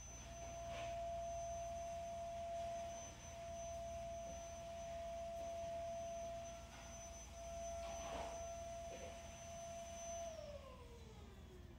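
A faint steady whine that slides down in pitch and fades about ten seconds in, over a low hum, with a few soft rustles of yarn and crochet hook being handled.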